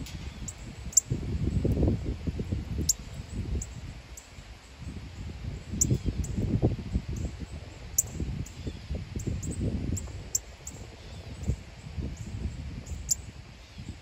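Wind gusting unevenly on the microphone as a low rumble, with many short, high bird chip notes scattered throughout.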